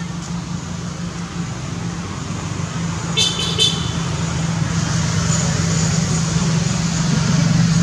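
A motor vehicle's engine hum running steadily and slowly growing louder, with two short high-pitched sounds a moment apart about three seconds in.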